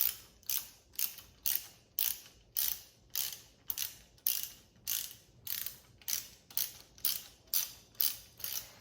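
Socket ratchet wrench cranking a bolt into the bicycle's headset: a steady run of ratcheting clicks, one burst on each back-stroke, about two a second.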